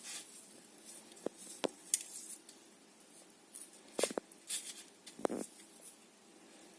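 Scattered light clicks and taps, with a little rustle, as small parts of a hydroponic grower are handled and taken apart.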